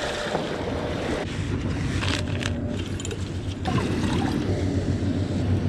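Steady wash of wind and river water with a low, even rumble underneath.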